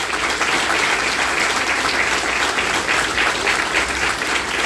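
Audience applauding: steady clapping from a small crowd of listeners, held at an even level throughout.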